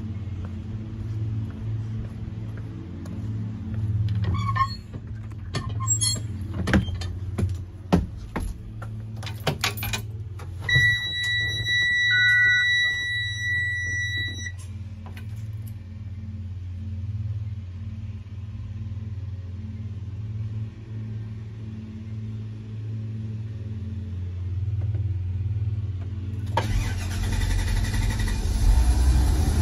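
2018 Thomas C2 propane school bus being started: with the ignition switched on, a steady electronic warning tone sounds for about four seconds, and about 27 seconds in the propane engine cranks and catches, running with a hiss. Before that a steady low hum, with a few clicks and knocks.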